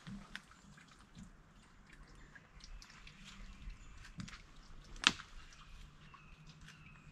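Footsteps on a leafy forest floor: scattered faint crackles and clicks, with one sharp snap about five seconds in.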